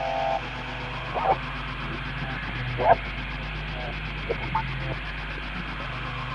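Eerie 'voices from the beyond' sound effect: a steady static-like hiss over a low hum, with a short tone at the start and several brief warped, voice-like cries breaking through, the loudest about three seconds in.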